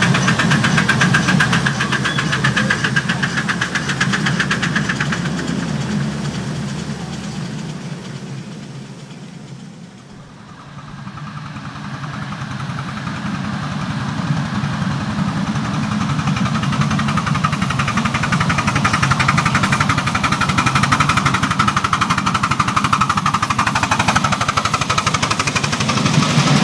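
Miniature ride-on steam train running: the locomotive's rapid exhaust beats and the wheel clatter fade as it draws away, dying down about ten seconds in. Then a train approaches and grows loud again as it passes close near the end.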